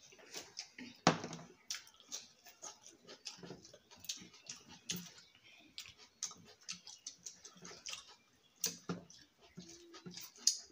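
Close-up eating sounds of people eating chicken biryani: irregular wet chewing, lip smacks and small clicks, several a second.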